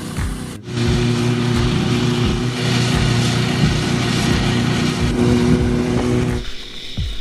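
A steady motor drone with loud hiss sets in abruptly under a second in and stops near the end, over background music with a steady thumping beat about twice a second.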